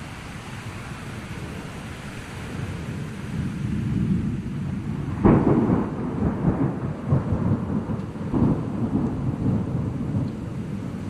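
Thunder during a rainstorm: a low rumble builds, breaks into a loud crack about five seconds in, then rolls on in several waves over a steady hiss of rain.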